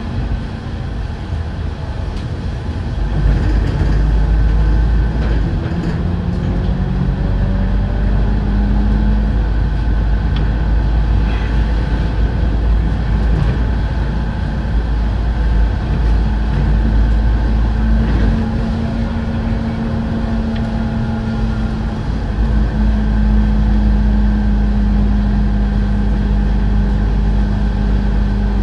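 Optare Solo SR single-deck bus heard from on board, its engine rising in revs, dropping back about nine seconds in, then climbing again, over a steady low rumble of road and drivetrain.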